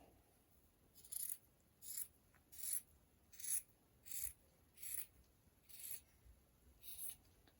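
Scissors cutting through cotton pillowcase fabric, about nine soft, even snips, roughly one every three-quarters of a second.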